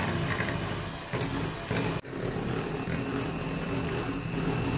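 Electric hand mixer running steadily, its twin beaters whipping mango pulp and whipped cream in a steel bowl. The sound drops out for an instant about two seconds in, then carries on.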